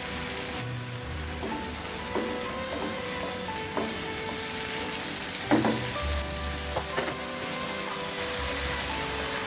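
Food sizzling in hot oil in a pan, with a spatula stirring and clacking against the pan a few times, the loudest knock a little past halfway.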